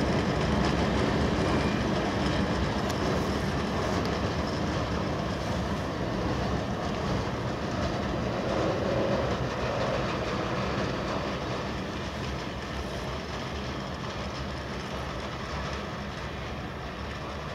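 Freight train of hooded steel-coil wagons rolling away along the rails, a steady rumble of wheels on track that fades slowly as the end of the train moves off.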